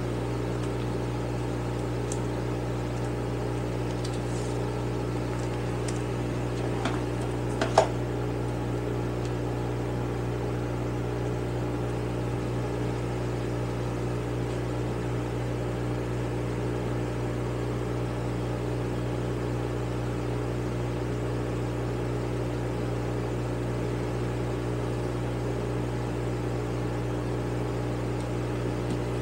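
Small electric fan running with a steady hum. A couple of light clicks from small carburetor parts being handled come about seven and eight seconds in.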